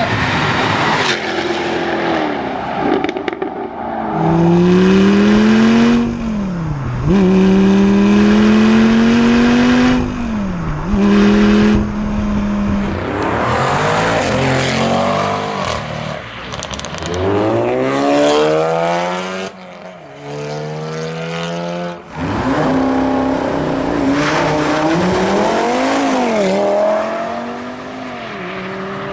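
High-performance car engines at full throttle: several cars in turn, each revving hard and accelerating, the engine note climbing and then dropping sharply at each upshift before climbing again.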